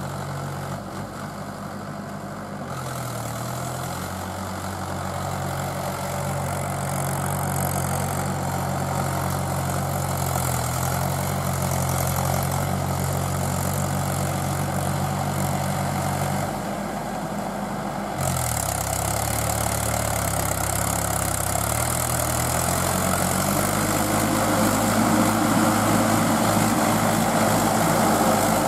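Mahindra 475 DI tractor's diesel engine running under load, its engine speed dipping and rising as it pushes through deep mud on steel cage wheels. In the later part, splashing and churning of water and mud grow louder over the engine.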